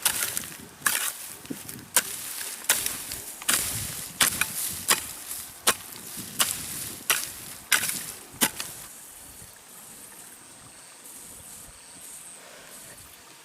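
A hand tool's blade chopping into grass and soil, a dozen or so sharp strokes at a steady working pace, stopping about eight and a half seconds in. Afterwards a faint steady high buzz remains.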